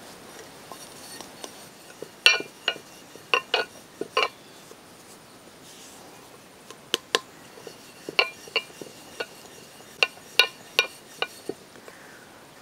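Sharp clinks and taps of hard objects against a glossy, hard work surface while flour-dusted dough is pressed and rolled out. They come irregularly, in small clusters of two or three, with a quiet spell of a couple of seconds in the middle.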